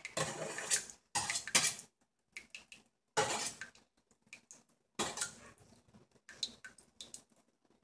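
Metal spatula scraping and clinking against the rim of a stainless steel mixing bowl, wiping off meringue, in a series of short strokes with brief pauses between them.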